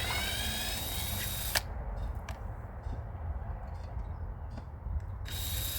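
Power drill backing out taillight screws: the motor whines and rises in pitch as it spins up for about a second and a half, then runs again briefly near the end, with a few small clicks between.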